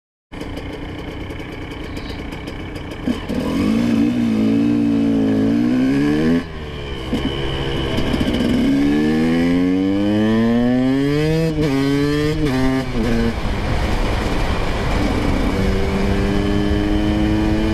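Dirt bike engine accelerating hard up through the gears, its pitch rising and then dropping at each shift: one sudden drop about six seconds in and a quick series of shifts around twelve seconds, before settling to a steady cruising note near the end.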